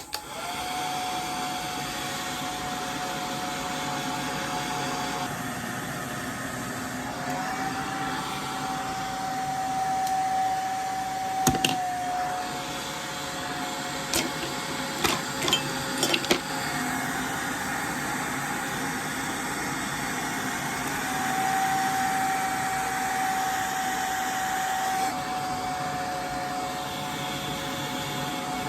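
Handheld hair blow dryer switched on and running, a steady whine with rushing air whose pitch steps up and down as it is moved or its setting changes, blowing over the spritzed lace to set and melt it down. A few short clicks come in the middle.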